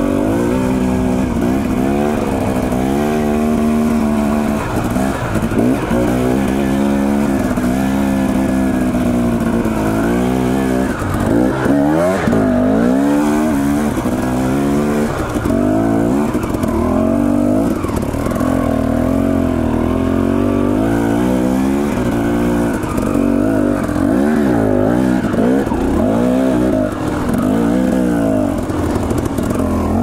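Dirt bike engine pulling up a trail climb, its revs rising and falling constantly as the throttle is worked.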